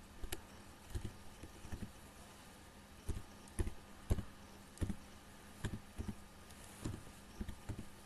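Computer keyboard typed on slowly, about a dozen separate key clicks at an uneven pace, each with a soft thud.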